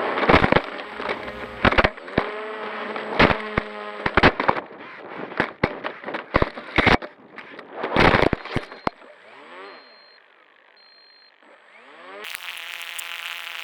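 Bixler 2 foam RC plane crashing, heard through its onboard camera: a run of sharp knocks and crackling clatter as it hits and tumbles, dying away after about nine seconds. About twelve seconds in, a steady buzzing hum starts.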